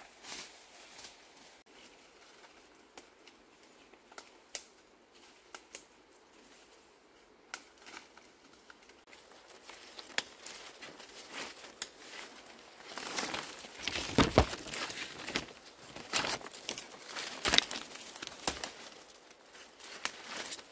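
Broad leaves being torn off their stems and rustled as they are picked by hand. At first there are only scattered crackles and snaps; from about ten seconds in come dense tearing and rustling, loudest around the middle, then in spurts toward the end.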